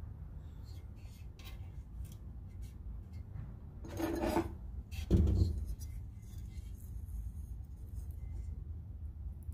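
Hard objects handled on a workbench: a short scrape about four seconds in, then a heavy clunk just after, with a few light clicks over a low steady hum.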